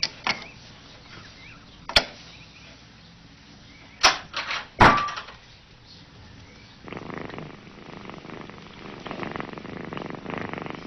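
A few sharp knocks and clacks, the loudest about two and about four to five seconds in, then from about seven seconds in a domestic cat purring steadily.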